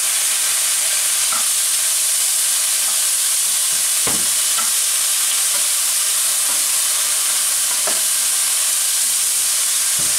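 Tofu cubes frying in hot olive oil in a pan, giving a steady high sizzle, with a few light scrapes and knocks of a wooden spatula stirring them.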